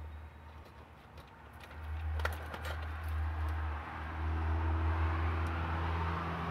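A motor vehicle's engine running in the background, growing louder about two seconds in and then holding steady. A few light clicks come from the stripped wires of an Ethernet cable being handled.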